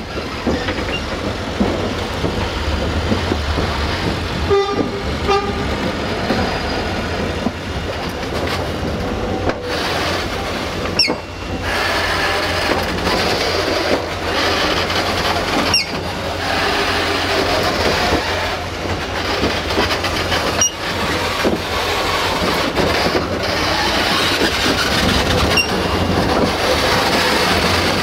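Steady rumbling hiss of locomotives standing at a railway depot, broken by brief dropouts several times, with two short horn toots about five seconds in.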